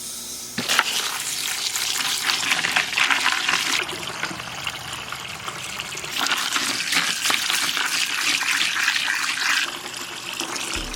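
Water running and splashing: a steady hiss with many small crackles.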